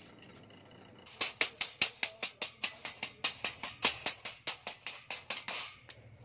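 Rapid hammer taps on a thin galvanized sheet-metal sieve ring, about six sharp strikes a second, starting about a second in and stopping near the end.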